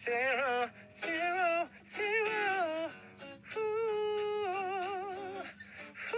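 Music with a high voice singing long, wavering notes in short phrases.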